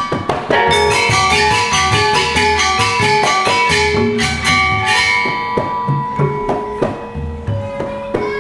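Balinese gamelan playing: rapid, dense strokes on bronze metallophones over kendang drum beats. About five seconds in the strokes thin out and a long held melody note comes through.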